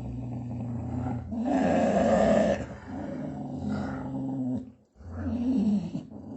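A dog growling in long low rumbles, turning louder and harsher for about a second from a second and a half in, then breaking off briefly near the end and starting again.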